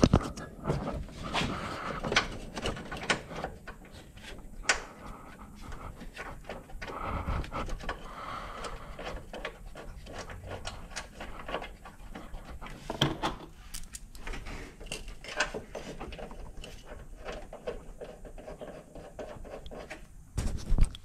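Scattered light clicks and metal taps as bolts are started by hand into a new engine mount, with breathing close to the microphone.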